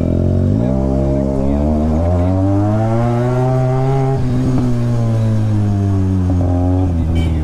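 Benelli 300's parallel-twin engine through an aftermarket SC Project exhaust, revving under acceleration. Its pitch climbs steadily for about three seconds, falls back and holds, then drops again near the end.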